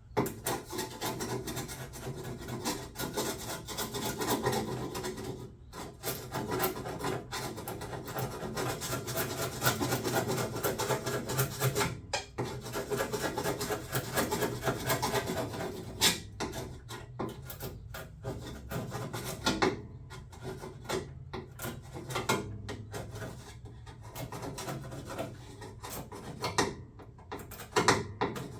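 Hand scraper rasping flaking rust off the rusted sheet metal at the back of a John Deere L110 lawn tractor, in repeated scraping strokes. The strokes run steadily, with brief breaks about 6 and 12 seconds in, then come shorter and more broken up by pauses in the second half.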